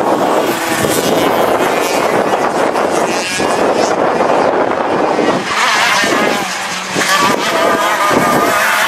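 Two-stroke engines of gearbox racing karts at racing speed. The engine pitch rises and falls repeatedly as the karts brake, shift gear and accelerate.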